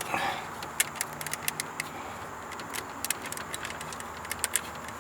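Scattered light plastic clicks and rattles of wiring connectors being worked loose from switches under a minivan's dashboard.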